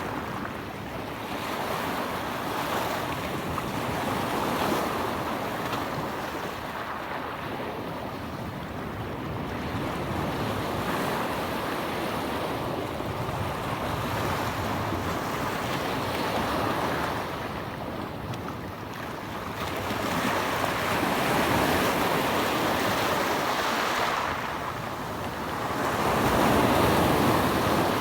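Sea waves washing in and ebbing, the noise swelling and fading every few seconds, with wind on the microphone.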